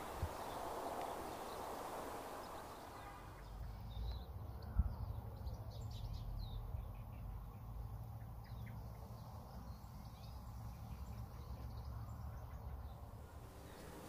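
Faint outdoor ambience of small birds chirping and twittering, starting about three and a half seconds in, over a low steady rumble, with one soft thump about five seconds in.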